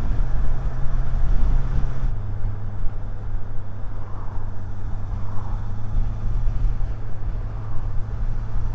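Motorcycle engine running steadily, with wind rush, heard through a helmet-mounted lavalier mic. About two seconds in, the engine note drops to a lower pitch and the wind eases, as the bike slows or changes gear.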